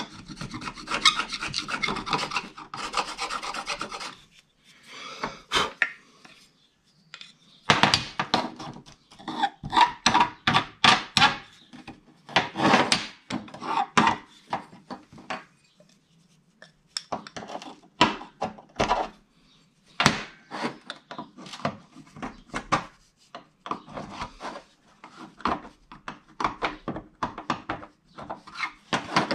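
Hand-held carbide scraper rasping old sealant off a metal casing, in runs of quick back-and-forth strokes broken by short pauses.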